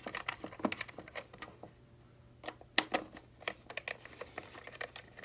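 Small screwdriver clicking and scraping on the screws and plastic case of a Copal flip clock as the screws are taken out: a run of small, sharp, irregular ticks with a short pause about halfway through.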